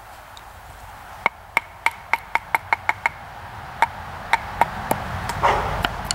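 A wooden baton striking the spine of a knife to drive it through a stick on a stump: a quick run of about nine sharp knocks, then a few slower ones, each with a brief ring from the steel blade. A short rougher crackle comes near the end.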